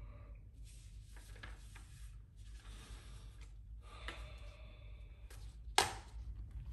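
Sheets of paper rustling as they are picked up and handled, in several short bouts, with one sharp, louder crackle of paper near the end.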